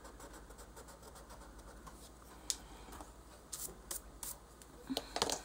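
Blending pencil rubbing back and forth on paper in quick, faint scratchy strokes, blending colored pencil on a drawing. In the second half come several sharp, light clicks.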